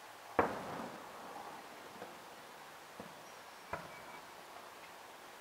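Distant fireworks shells bursting. A sharp bang about half a second in trails off in an echo, then three fainter pops follow at roughly one-second intervals.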